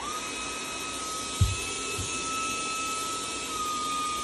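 Cordless stick vacuum cleaner switched on, its motor starting up and running with a steady high whine over a rushing airflow hiss; the whine drops slightly in pitch near the end. A single thump about a second and a half in.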